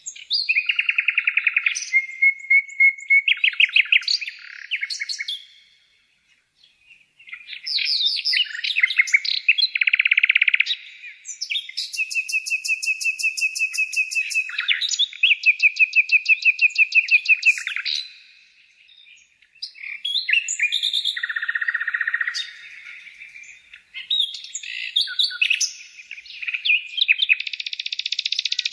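Birds singing: varied whistled phrases, trills and fast runs of repeated notes, with short pauses about six seconds and again about nineteen seconds in.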